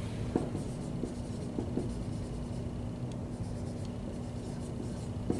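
Dry-erase marker writing on a whiteboard: a run of short marker strokes.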